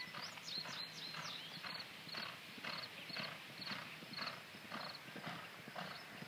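Steady clip-clop of hoofbeats, about two a second, with small birds chirping high above.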